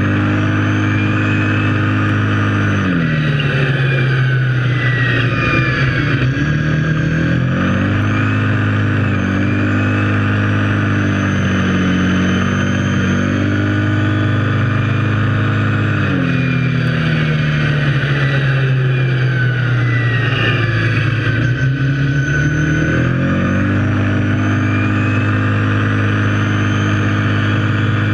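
Kawasaki KFX700 quad's V-twin engine running steadily under way, its pitch dropping and then climbing back twice as the revs fall and rise.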